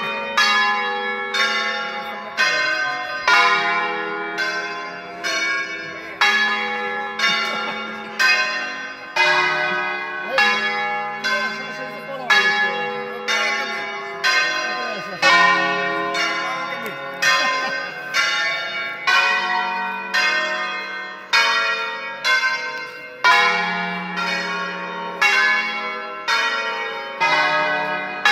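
A ring of ten church bells tuned in D-flat, rung full-circle in the Veronese style, strike one after another in a steady rhythmic melody. Each note rings on under the next.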